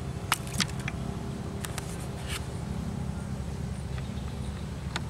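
A motor or engine running steadily as a low hum. A few short sharp clicks or taps come over it, the loudest about a third of a second in and another near the end.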